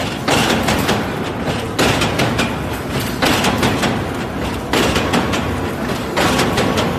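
Hexagonal wire mesh (gabion) weaving machine running: a steady metallic clatter that surges about every one and a half seconds, once for each weaving cycle.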